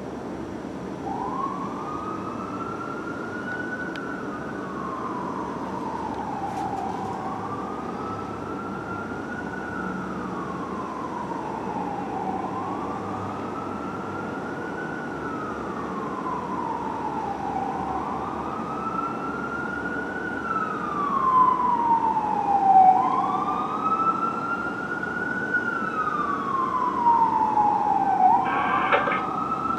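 Fire truck siren in wail mode, rising and falling slowly about every five seconds over city traffic noise. It gets louder after about twenty seconds.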